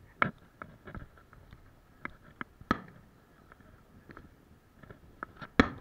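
Irregular knocks and taps, about a dozen in all, three of them louder than the rest: one about a quarter second in, one near the middle and one just before the end.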